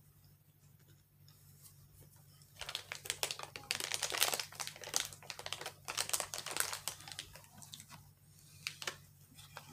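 Close-up crunching and chewing of a crisp shortbread cookie: dense, rapid crackly crunches starting about two and a half seconds in, easing off briefly near the end before starting again.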